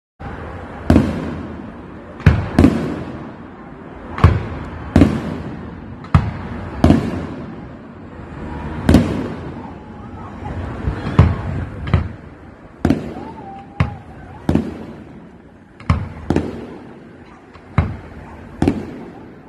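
Aerial firework shells bursting in a rapid, uneven series, about one sharp bang a second, each followed by a fading rumble of echo.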